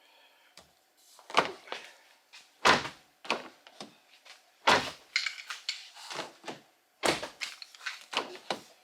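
Rear door of a 2017 Kia Sorento opened and shut several times with its newly replaced outside handle: clicks of the handle and latch and several door-closing thunks, the loudest about every second or two. The latch now releases when the handle is pulled, so the repair works.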